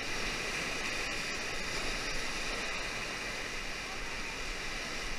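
Steady rush of whitewater river rapids, an even hiss of flowing water.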